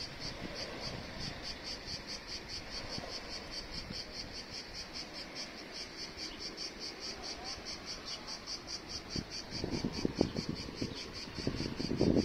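Cricket chirping in a steady, even rhythm, about five high chirps a second. Some low knocks and rumbling come in near the end.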